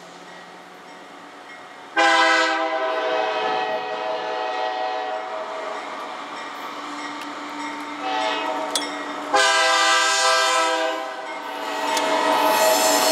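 Diesel locomotive air horn sounding a series of blasts, a chord of several steady tones: a long loud blast starts suddenly about two seconds in, then a short blast, then two more long blasts near the end.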